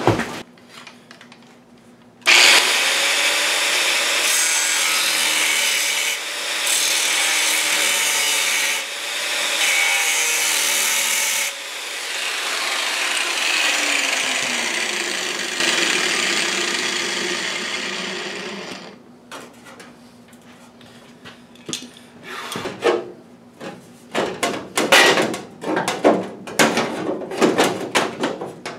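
Electric angle grinder cutting the sheet steel of a 1935 Ford truck firewall. It starts abruptly about two seconds in, runs for about sixteen seconds with one brief dip, then winds down with a falling whine. Afterwards comes a run of light knocks and clicks as the cut metal is handled.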